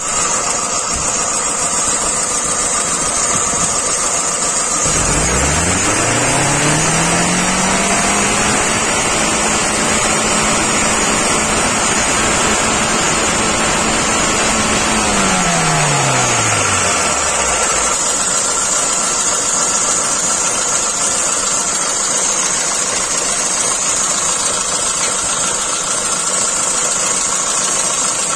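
Car engine idling under the bonnet. About five seconds in, the electric radiator cooling fan spins up to a steady hum, runs for about seven seconds, then winds down and stops.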